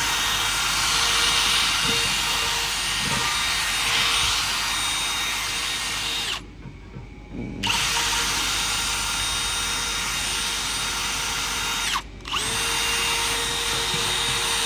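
Power tool running with a steady high whine, brushing the weld to clean off its discoloration. It stops abruptly about six seconds in, starts again about a second later, and cuts out briefly once more near the end.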